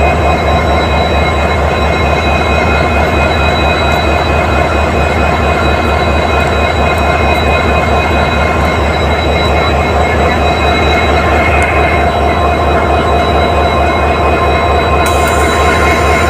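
WDP4D diesel locomotive's EMD 16-cylinder two-stroke engine idling: a steady low running sound with several steady whining tones above it.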